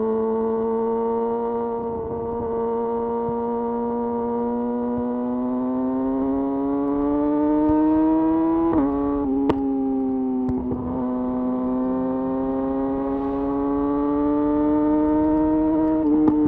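Yamaha YZF R6 inline-four running through a de-catted Akrapovic slip-on exhaust at a steady, easy cruise. The revs climb slowly, drop at an upshift about 9 s in with a sharp click just after, then climb again before dipping near the end.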